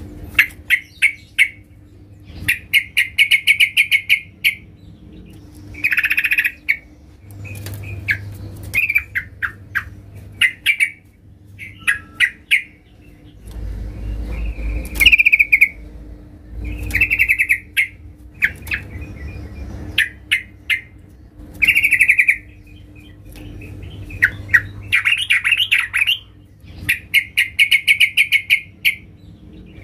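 A caged yellow-vented bulbul sings loud, rapid chattering phrases over and over, each about a second long with short pauses between. This is a vigorous challenge song aimed at rival birds.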